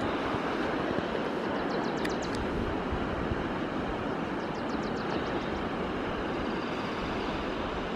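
Steady rushing roar of ocean surf breaking on the rocks below a headland, with faint quick high-pitched ticking runs about two and five seconds in.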